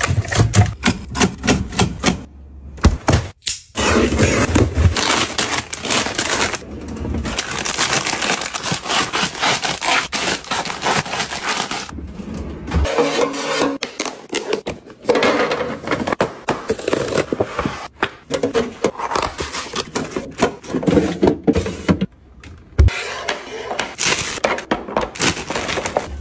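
A run of close-miked sounds of plastic packaging and containers being handled: drink bottles and tubs set down on a counter, plastic rustling and crinkling, and clear plastic bins and lids clicking and knocking into place. Several abrupt changes from one short clip to the next.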